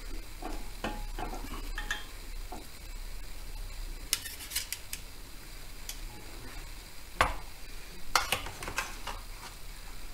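Metal knife and spatula scraping and clinking against a metal baking tray and a glass plate as a portion of pie is lifted out and plated. The clinks come in clusters about four and eight seconds in, and the sharpest single clink comes about seven seconds in.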